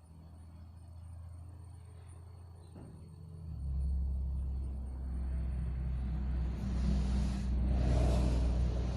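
A motor vehicle's engine rumbling, stepping up louder about three and a half seconds in and swelling to its loudest near the end.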